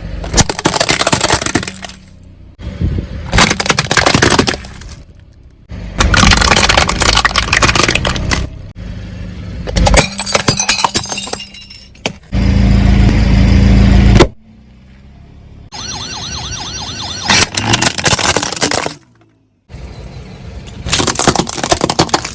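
A string of separate crunches as a car tyre rolls over drink bottles and other crunchy objects, which crack and break under the weight; about seven loud crushing bursts with short quiet gaps between them, and a low rumble under one of them.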